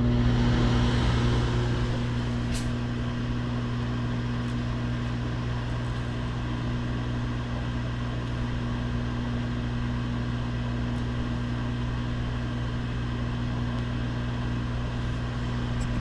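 GE built-in microwave oven running: a steady low electrical hum from its transformer with the even whir of its cooling fan.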